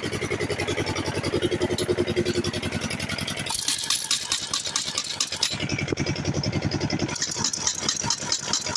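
Pneumatic impact wrench hammering as it undoes truck wheel nuts, with a fast rattle and hiss of air, in two bursts: one starting about three and a half seconds in and one about seven seconds in. Before the first burst a steady motor runs underneath.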